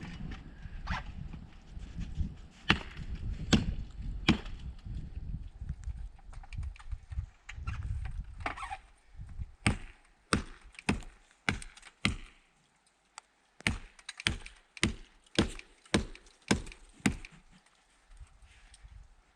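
Ice being broken up with a hand tool: sharp chopping blows, irregular at first over a low rumble, then a steady run of strikes about every two-thirds of a second for around eight seconds.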